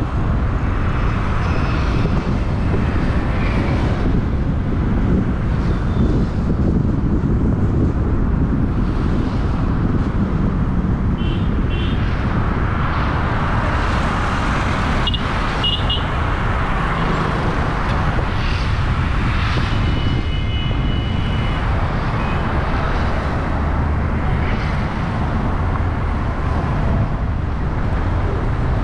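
Car driving through town traffic: a steady rumble of engine, tyres and road noise. A few brief high tones cut in around the middle, one held for about a second and a half.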